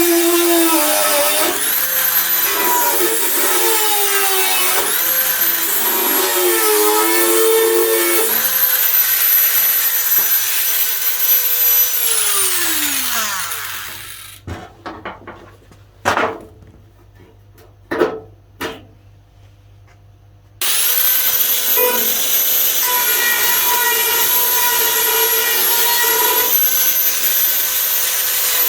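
Angle grinder working on the door's sheet steel, its motor whine dipping and recovering under load, then spinning down about twelve seconds in. A few light knocks in a short pause, then the grinder is running steadily again for the rest of the time.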